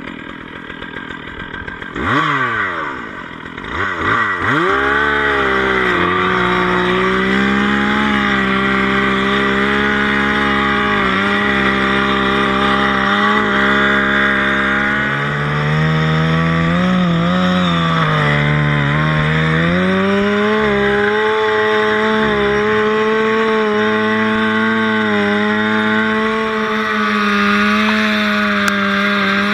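Gas-powered ventilation saw cutting a vent hole in a burning building's roof. About two seconds in it revs up to full throttle and runs steadily. The pitch drops under load for a few seconds in the middle, then rises again.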